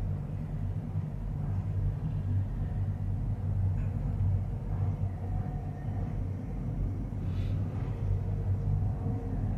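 Steady low rumble inside a moving gondola cabin as it travels along the cable, with a faint hum over it.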